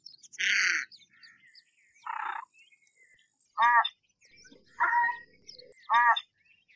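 American white ibis giving a series of short honking calls, five in all, about one every second or so. The first two are rough and hoarse, the later ones have a clearer, nasal tone.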